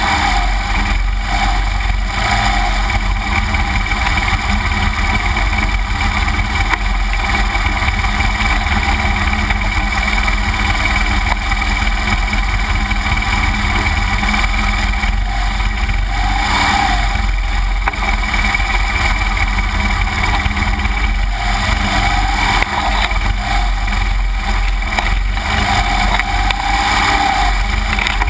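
2009 BMW R1200GS Adventure's boxer-twin engine running as the motorcycle climbs a rough wooded trail, heard from a bike-mounted camera with a steady low rumble of wind and vibration on the microphone.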